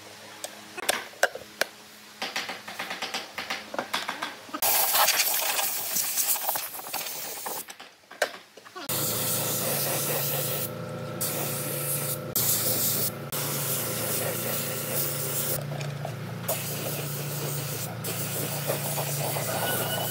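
Wooden slats of a handbag flap clacking as it is handled. From about five seconds in, a pneumatic spray gun hisses in repeated bursts, spraying finish onto the wooden bag, over a steady motor hum that starts about nine seconds in.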